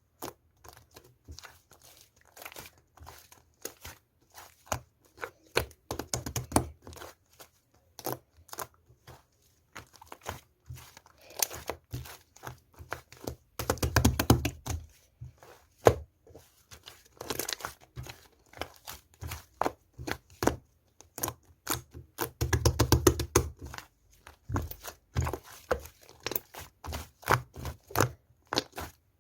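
Slime being squeezed, stretched and kneaded by hand, giving irregular crackling clicks and pops, with denser, louder squelchy stretches a few times.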